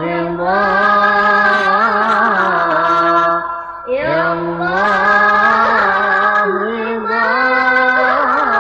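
Music of a devotional sholawat song in Middle Eastern 'padang pasir' style: a melodic passage of long, ornamented held notes in two phrases, with a short break about three and a half seconds in.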